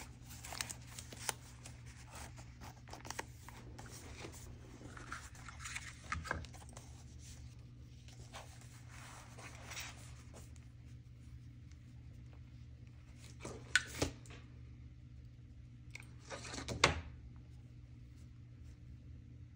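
Hands handling paper, lace trim and a thin plastic sheet: soft rustling and scraping through the first half, then two pairs of sharper knocks or taps, the loudest near the end.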